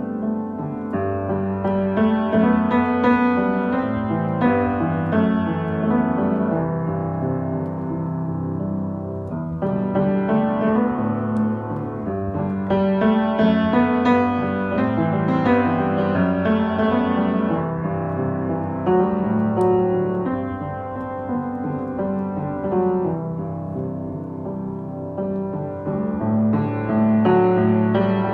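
Piano music: held chords and notes that swell and ease off in waves.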